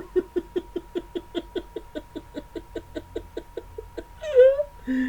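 A person's voice in mock sneezing: a rapid string of short 'ah'-like bursts, about five a second for nearly four seconds, then a brief rising-and-falling vocal cry and a short held note near the end.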